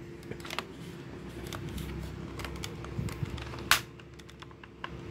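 Handling of a spring airsoft PDW replica: small plastic and metal clicks and rattles as its parts are worked, with one sharper click about two-thirds of the way through. A faint steady hum runs underneath.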